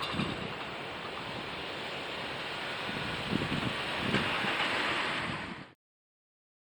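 Train running past on the rails: a steady rushing noise with a few low thuds, which cuts off suddenly near the end.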